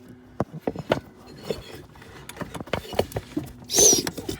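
Scattered clicks, knocks and rubbing from hands working parts into a truck seat's suspension, with a louder brief scraping rush and squeak near the end.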